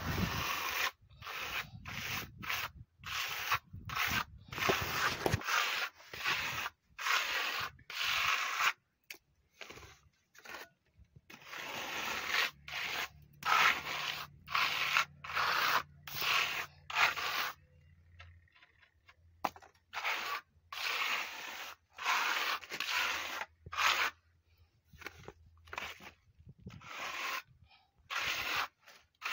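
Steel trowel scraping gritty textured wall coating across a wall in repeated rough strokes, about one a second.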